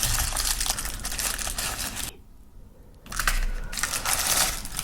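Plastic toy packaging being crinkled and crushed by hand as it is opened, a dense crackling that stops for about a second midway and then starts again.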